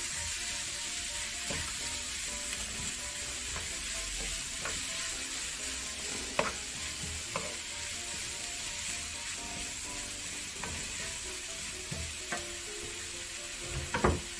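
Sliced eggplant and onion sizzling in oil in a frying pan with a steady hiss as they are stir-fried with a wooden spatula. The spatula knocks on the pan a few times, the loudest near the end.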